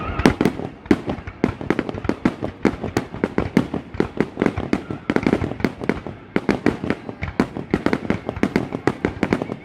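Fireworks display going off in a rapid, continuous barrage of bangs and pops, several per second, overlapping one another.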